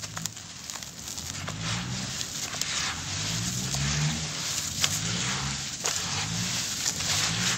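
Gloved hands squeezing and crumbling a damp, gritty charcoal mix: a continuous gritty crunching and rustling, with a low drone coming and going underneath.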